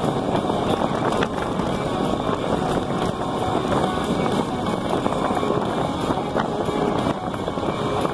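Steady wind noise on the microphone mixed with tyre rumble on a gravel road, from an electric bike riding along.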